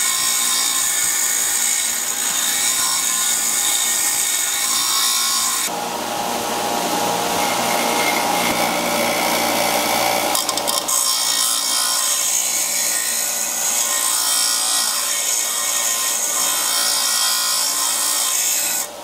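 Skil benchtop belt-and-disc sander running while the side of a steel wood screw is ground against its sanding disc, throwing sparks as flats are cut across the threads to form a tap's cutting teeth. Continuous grinding over the motor's hum, its tone changing about six and eleven seconds in, then cutting off near the end.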